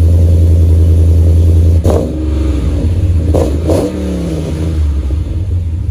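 Cammed Hemi V8 pickup exhaust at the tailpipe, idling steadily, then revved sharply about two seconds in and twice more a second or so later, each rev falling back toward idle.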